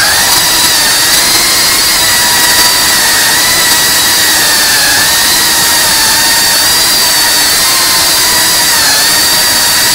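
FPV drone's electric motors and propellers running in flight with a loud, steady high-pitched whine, the pitch wavering slightly as the throttle shifts and dipping briefly near the end.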